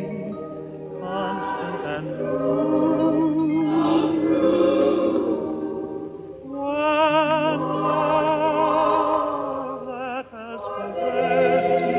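Film-score choir singing slow, sustained phrases with heavy vibrato. The sound drops away briefly about ten seconds in, then the next phrase swells.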